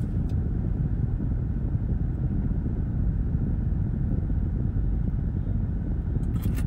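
Steady low rumble of an idling car heard from inside its cabin, with a brief sharp noise near the end.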